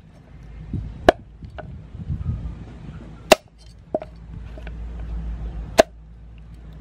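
A cleaver chopping a mud crab on a wooden chopping board. Three sharp, loud strikes come about two seconds apart, with lighter taps and clicks between them.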